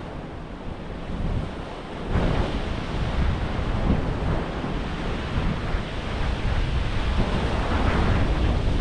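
Sea surf washing in, with wind buffeting the microphone; the rushing gets louder about two seconds in.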